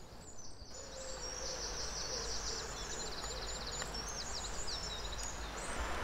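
A small songbird singing a long run of high-pitched, rapid trills and short notes, starting about a second in and stopping near the end, over a steady background rush.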